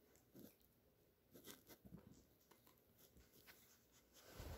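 Near silence: a few faint, scattered ticks and rustles, with a louder rustle near the end.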